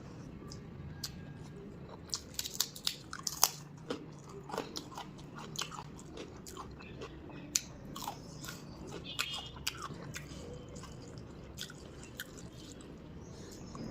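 A person chewing food close to the microphone, with wet mouth sounds and many sharp crunches and clicks, thickest between about two and six seconds in.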